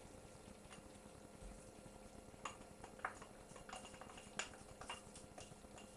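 Salt and pepper being added to a pan of cooked vegetables: a few faint, irregular light clicks and taps, starting about two and a half seconds in, over a low steady hum.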